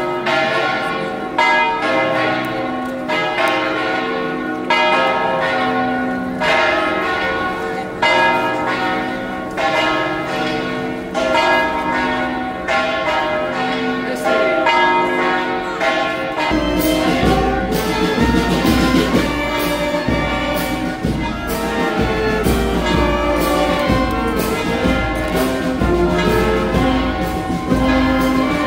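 Church bells ringing a festive peal: overlapping strikes with long ringing tones, the louder strokes about every one and a half seconds. About halfway through, the sound turns fuller and a low rumble joins the bells.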